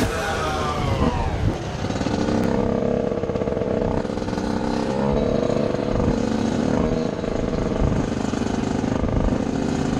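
TM 125 SMR supermoto engine heard from on board, its revs falling over the first second or so, then running at a fairly steady part throttle with small rises and dips.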